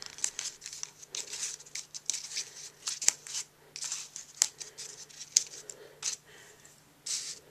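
A bone folder scraping and rubbing along the pleats of an accordion-folded designer-paper rosette, with paper rustling in short, irregular strokes and a few sharp ticks. It is pressing the folds down onto an adhesive dot so the rosette stays stuck.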